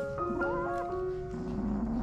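Background music of held, bell-like notes, with a kitten meowing once, briefly, about half a second in.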